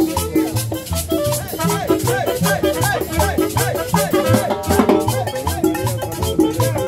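Salsa music played live: conga drums and maracas over a steady repeating bass line, with a melody over the top.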